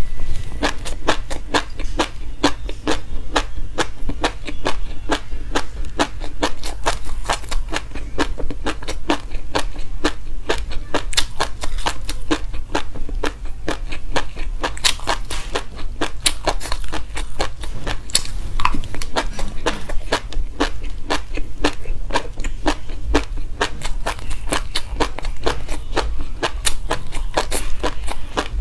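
Close-up chewing of a mouthful of dry white sesame seeds: a dense, steady run of tiny crunches and crackles, many a second.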